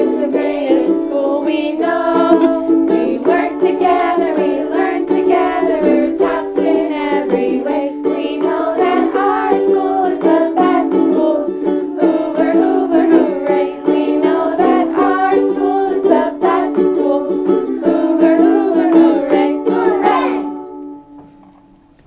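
A group of children and two women singing a school song to two strummed ukuleles. The song ends shortly before the end.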